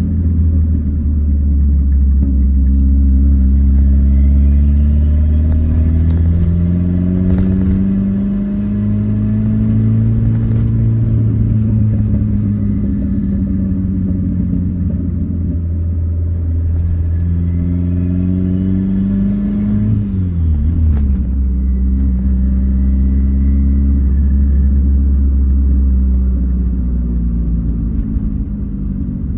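Turbocharged, carburetted VW AP engine of a Gol under way: the engine note climbs under acceleration, drops suddenly at a gear change about 8 seconds in, climbs again and drops again at another shift about 20 seconds in.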